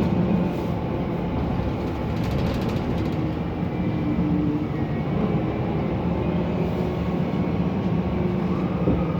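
Mercedes-Benz Conecto NGT city bus's OM 936G natural-gas engine and noisy cooling fan running with a steady rumble, with a faint rise in pitch near the end.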